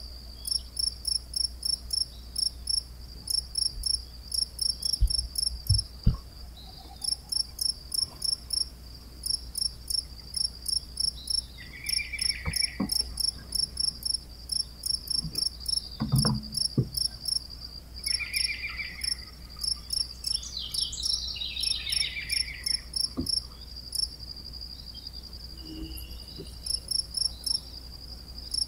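Cricket chirping continuously in quick, even trains of high pulses. A few lower falling trills from another animal come in now and then.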